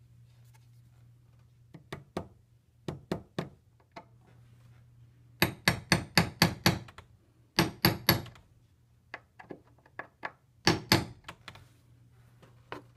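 Claw hammer tapping small nails to fix model railroad track to its cork roadbed. The taps come in short groups, and the loudest is a quick run of about seven taps a little past halfway.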